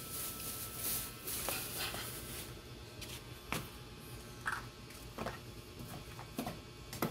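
Scattered soft taps and clicks of cassava chunks being broken apart by hand and dropped into a wooden mortar, with a spoon knocking against a plastic bowl.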